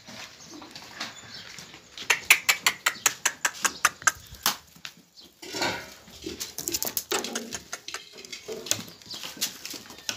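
Goat kids' hooves tapping on a concrete floor in a quick run of sharp clicks about two seconds in, then softer scuffling and rustling.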